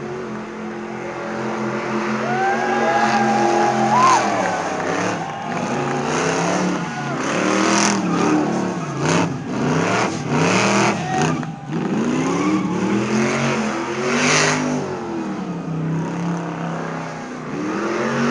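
Car engine revved hard over and over, its pitch climbing and dropping again and again.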